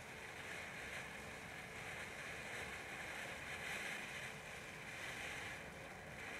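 Firework fountain burning with a steady hiss as it sprays sparks.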